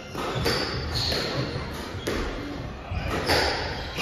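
A squash rally: a hard squash ball struck by rackets and smacking off the court walls, about half a dozen sharp hits, echoing in the hall. Short high squeaks from players' shoes on the court floor come in between.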